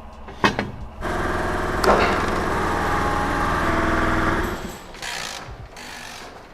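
Car lift's electric pump motor running steadily for about three and a half seconds, raising the car, then winding down. It is preceded by a couple of sharp metallic clanks.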